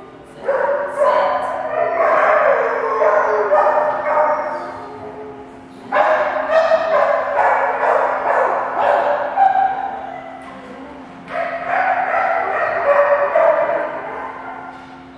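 Dog barking and yipping in three long, loud bouts of rapid barks, over a steady low hum.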